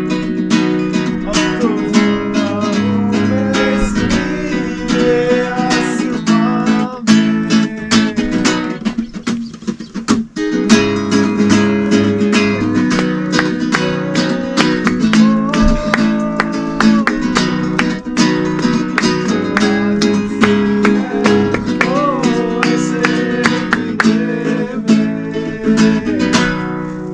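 Acoustic guitar strummed and picked in a steady rhythm, played without singing.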